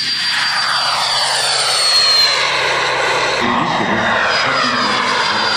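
Radio-controlled model jet's engine running at high power as the jet takes off and climbs past: a high, steady whistle that sinks slightly in pitch, over a rushing noise that sweeps as the aircraft passes. The sound shifts abruptly about three and a half seconds in.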